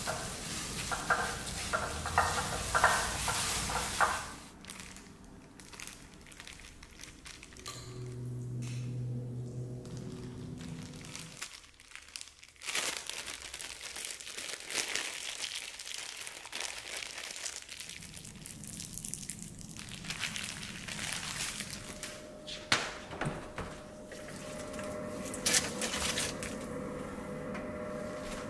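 Plastic bag crinkling and rustling as hands squeeze and knead marinated food inside it, with a few sharp knocks near the end.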